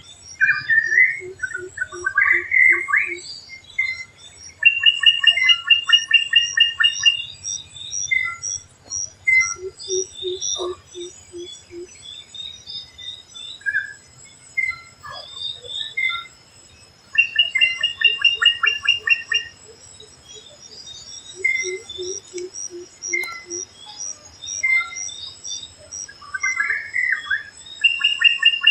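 Drongo calling: varied phrases of rapid stuttered notes that repeat every few seconds. A short run of low, quick notes comes in four times, and a steady high insect drone runs beneath.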